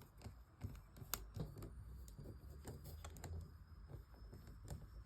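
Faint, irregular clicks and taps of a small Torx screwdriver turning out a screw in a Nokia 2730 mobile phone's housing, with small parts being handled.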